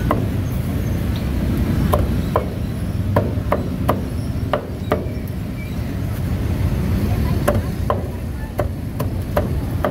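A cleaver chops through roast duck on a round chopping block, landing about fourteen sharp chops in irregular clusters with a short pause midway. A steady low rumble runs underneath.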